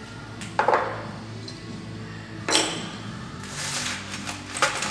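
Loose steel bolts and small metal brackets clattering and clinking as a hand rummages through a tray of them, in a few separate sharp rattles, the loudest about half a second in and again about two and a half seconds in.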